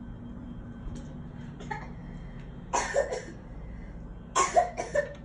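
A person coughing in two short bouts: two coughs about three seconds in, then three more a second and a half later, over a low room hum.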